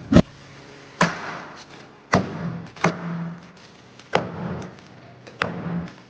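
A series of sharp knocks, about six spaced roughly a second apart, each with a short fading ring.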